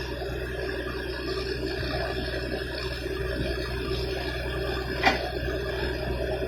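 Borewell machinery running steadily with an even hum, and one sharp knock about five seconds in.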